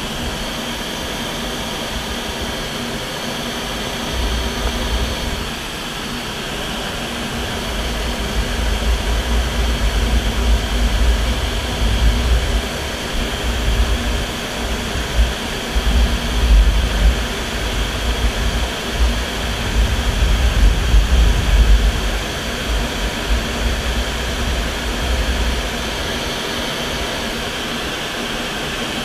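MiG-29's twin turbofan engines running under power together with rushing airflow over the outside-mounted camera, a steady hiss. Through the middle, heavy low wind buffeting swells and fluctuates as the jet banks and climbs.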